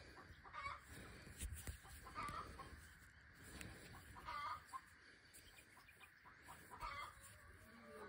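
Chickens clucking faintly, a short call every couple of seconds, with a few faint taps in between.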